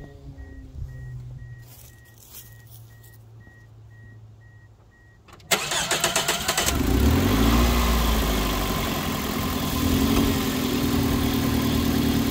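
Toyota Matrix four-cylinder engine cranked over by the starter about five seconds in. It catches after about a second, flares briefly, then settles into a steady idle, running smoothly with every coil pack connected and no misfire. Before the start a faint electronic chime beeps on and off.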